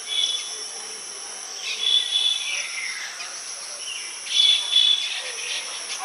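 Baya weaver birds calling three times, each call a held high note that slides downward, over a steady high insect buzz.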